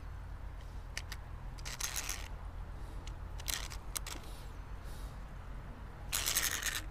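Handling noise from a tiny micro fishing rod and its small reel: scattered sharp clicks and a few short rattling scrapes, the longest and loudest near the end, over a low steady rumble.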